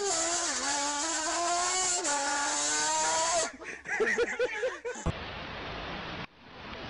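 A man's long, loud yell with a wavering pitch, breaking off about three and a half seconds in into bursts of laughter. After a sudden change, a steady hiss of street noise.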